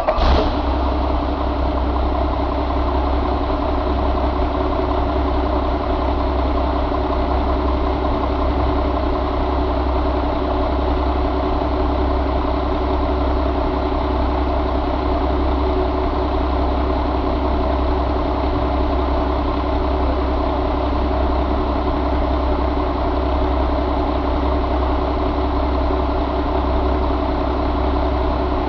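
2006 Mack E7 inline-six diesel engine idling steadily just after starting. It settles from a brief flare in the first half second into an even, unchanging idle.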